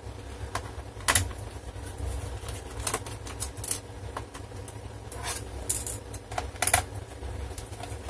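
Scattered small clicks and taps as a screwdriver undoes the small screws in a Toshiba Satellite C850 laptop's plastic underside casing, about ten in all, irregularly spaced.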